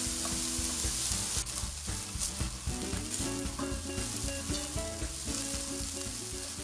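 Diced onions sizzling in hot olive oil in a pot, stirred with a wooden spoon, over background music.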